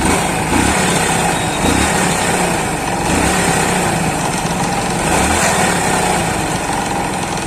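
Hero Splendor's single-cylinder four-stroke engine revved lightly in short blips about once a second, with an abnormal noise from the magneto (flywheel) side that the mechanic traces to worn crankshaft bearings.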